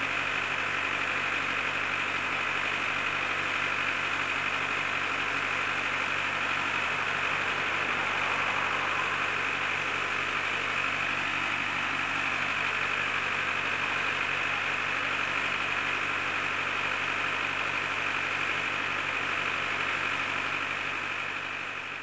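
A steady mechanical hum, like a motor or engine held at constant speed, with a high whine over a low drone. It begins to fade near the end.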